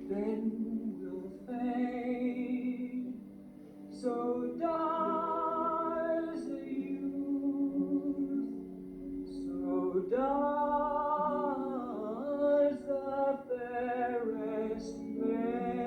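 Music: a solo voice singing a slow ballad in long held notes over a sustained accompaniment, with short breaks between phrases.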